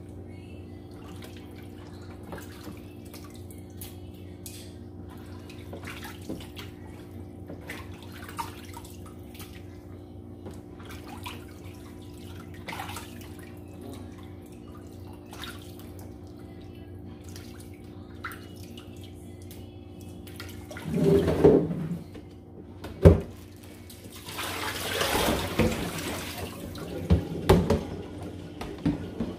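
Raw goat meat being washed by hand in a basin of water: small splashes and drips throughout, over a steady low hum. Near the end comes a louder rush of water from the kitchen tap and a sharp knock.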